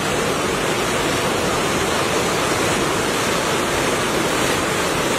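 Muddy monsoon floodwater rushing and churning down a walled channel in spate: a loud, steady wash of turbulent water.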